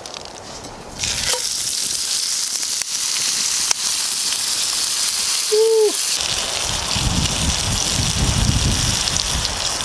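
Ribeye steak sizzling in a cast-iron skillet over a campfire: a steady frying hiss that starts about a second in.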